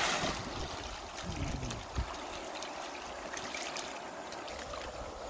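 River water splashing and sloshing around a person standing in it, with the fading end of a big splash at the start and a thump about two seconds in, as a pig's head is washed by hand in the water.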